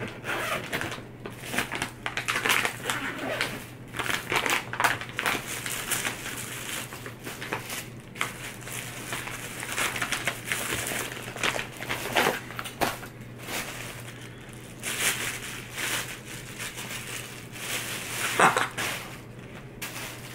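Plastic packaging crinkling and rustling in irregular bursts as boxing gloves are handled and pulled out of a clear zippered vinyl bag and their plastic wrapping, with a louder crackle near the end.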